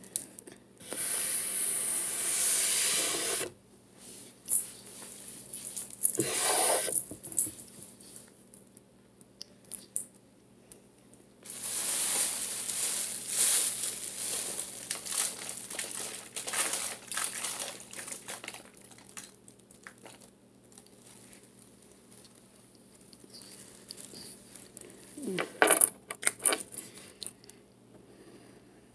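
Handling noise right at the phone's microphone: long stretches of rustling and rubbing, hiss-like and loudest in the high range, broken by pauses. A few sharp taps and clinks come near the end.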